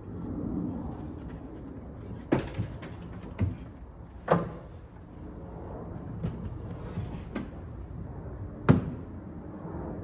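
Knocks and thumps of an old Sears Craftsman 12-inch bandsaw being shifted and lowered by hand: a cluster of sharp knocks between about two and four and a half seconds in, and a single louder bang near the end.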